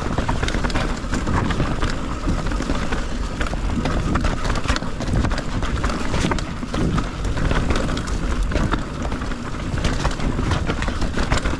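Mountain bike descending a rough, slippery dirt trail: tyres rumbling over dirt and rock with a dense, irregular clatter of sharp knocks from the bike rattling over the bumps.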